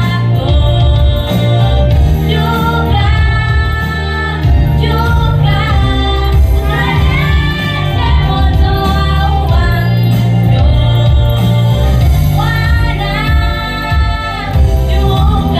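Girls' and children's choir singing a gospel song in unison over loud backing music with a strong bass.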